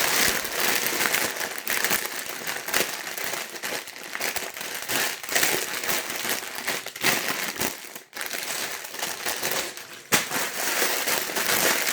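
Plastic LEGO parts bags crinkling as they are handled, with the loose bricks inside rattling now and then, in irregular bursts.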